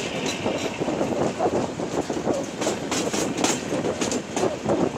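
A passenger train's coaches running along the track, heard from a window of a moving coach: a steady rumble of wheels on rails, with clicks of wheels over rail joints about halfway through.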